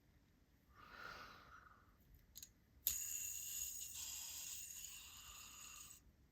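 Fidget spinner flicked into a spin about three seconds in, its ball bearing whirring with a steady high-pitched ring for about three seconds before it is stopped abruptly. A faint rush of noise and a click come first.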